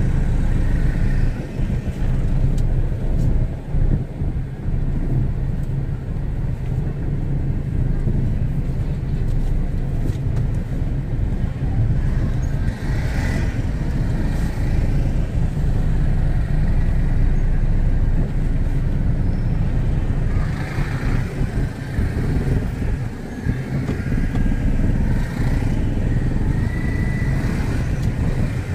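Street traffic in a slow-moving jam: a steady low rumble of car and motorcycle engines, with motorcycles passing close by.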